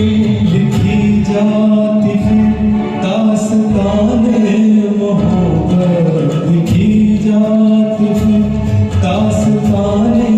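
Male voice singing a Hindi film song karaoke-style over a recorded backing track with bass and a regular percussion beat.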